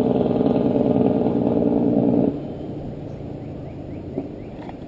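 Light spinning reel being cranked on a lure retrieve: a steady gear whir that stops abruptly a little over two seconds in.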